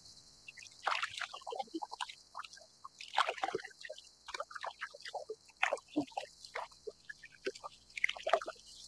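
Small waves lapping and dripping against a kayak's hull as it glides: irregular light splashes and plips, over a faint steady high hiss.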